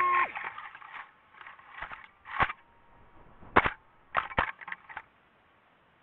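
DJI FPV drone's motor whine cuts off just after the start, then a series of sharp, irregular knocks and cracks as the falling drone strikes branches on its way down a wooded slope. The last knocks come about five seconds in, as it comes to rest.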